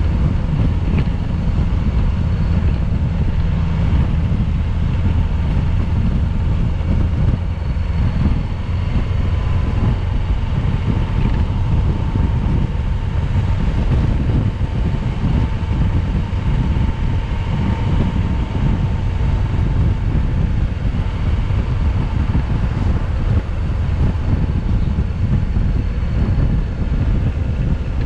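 Steady road noise from a moving vehicle: engine and tyres under a heavy low rumble of wind buffeting the microphone, with a faint held whine.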